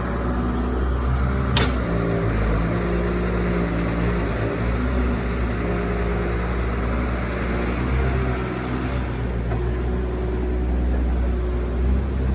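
Doosan 140 excavator's diesel engine running steadily under working load, with one sharp knock about a second and a half in.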